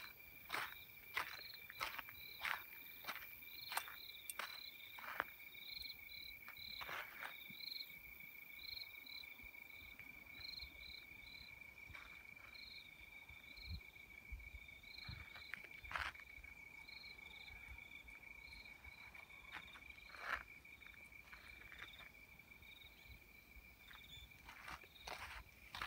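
Faint insects trilling steadily, with a second, higher insect call in short repeated pulses. Footsteps on a gravel platform, frequent in the first few seconds, sparse in the middle and frequent again near the end.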